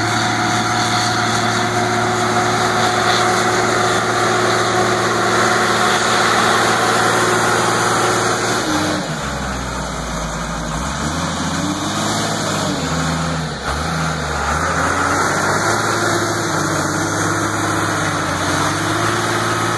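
New Holland 12D wheel loader's turbo diesel engine running steadily while the machine moves material. About nine seconds in it gets deeper and its speed rises and falls repeatedly as the loaded loader works.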